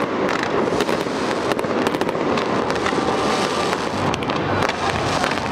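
Fireworks display going off: a dense, continuous run of bangs and crackling pops.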